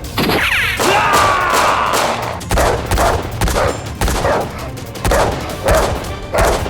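A run of gunshot sound effects, sharp shots repeating about every half second to a second, after a brief sliding whoosh at the start.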